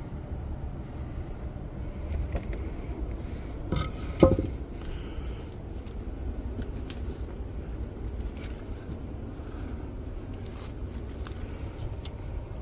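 Scraping and knocking from someone moving about and handling things, over a steady low rumble, with one loud knock about four seconds in.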